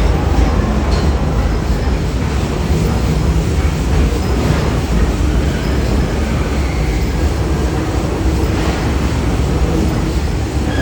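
Steam train of the Walt Disney World Railroad running along the track, heard from aboard a passenger car: a steady, loud rumble of wheels on rails with a few faint clicks.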